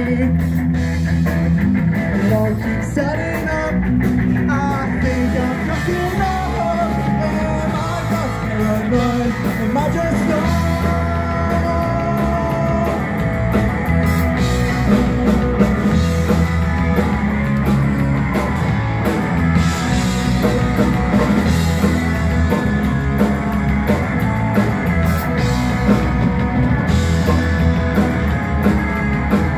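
Live rock band playing loud and without a break: distorted electric guitars, bass guitar and a drum kit.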